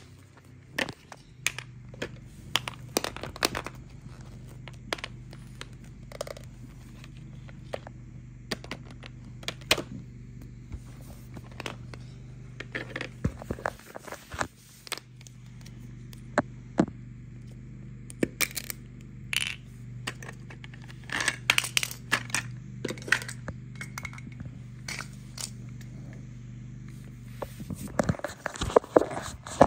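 Plastic toy pieces clicking, knocking and clattering irregularly as they are handled and set down, over a steady low hum that stops near the end.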